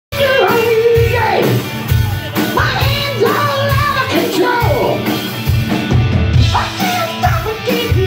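Live amplified rock band playing: a male singer belting into a handheld microphone over electric guitar and a drum kit.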